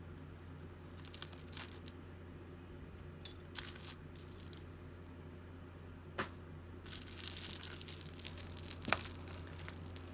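Plastic bag crinkling and rustling as costume jewelry is picked through, with scattered light clicks of the pieces; the crinkling gets busy and continuous near the end.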